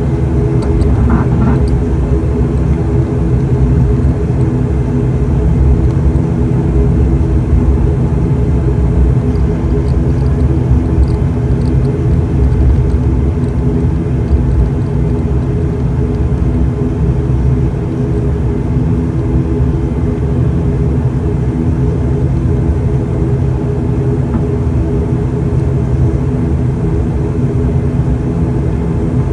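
Cabin sound of an ATR-72's turboprop engine and propeller running while the aircraft taxis, heard from a window seat beside the propeller: a steady drone with several humming tones over a deep rumble.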